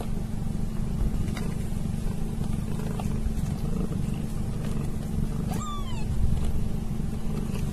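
Mother cat purring steadily and close up while she grooms her newborn kittens. About five and a half seconds in, a newborn kitten gives one short squeak that falls in pitch.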